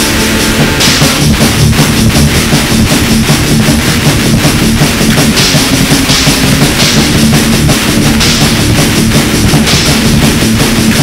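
Black/thrash metal demo recording: a held chord for about the first second gives way to fast, dense drumming on a full drum kit with bass drum, under a steady band sound, with cymbal washes coming and going.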